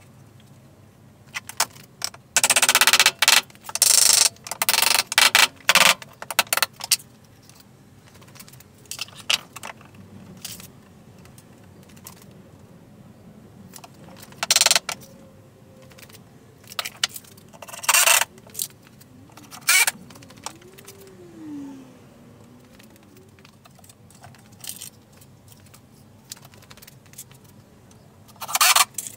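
Metal bar clamps rattling and clicking as they are slid into place and tightened on timber beams. The sound comes in short bursts, most of them packed into the first several seconds, then a few more spread out later.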